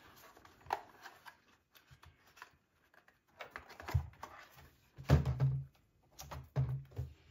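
Scattered knocks and rubbing as a small plastic 1/18-scale RC truck is handled, turned and set down on a workbench, with the loudest thuds a little after five seconds in and another cluster near the end.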